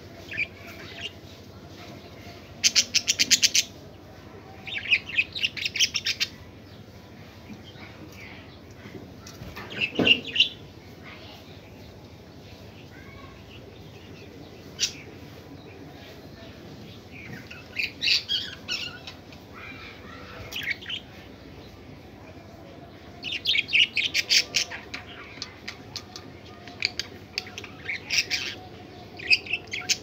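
Small pet parrots chirping and chattering in short bursts of rapid high notes, several times over, with a sharp knock about ten seconds in.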